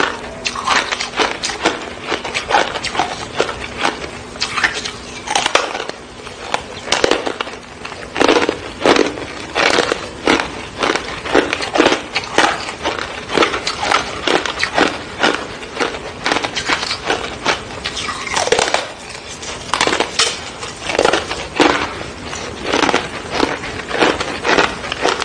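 Teeth biting and chewing a hard frozen ice bar: a steady run of loud, sharp crunches and cracks, with a couple of brief pauses between bites.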